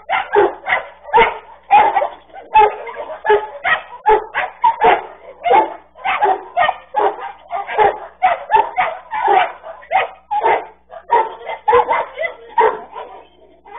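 Dogs barking hard and fast in a fight, short sharp barks about two or three a second with hardly a pause, as the yard dogs go for an intruding dog. The sound is thin and cut off at the top, like a security camera's microphone.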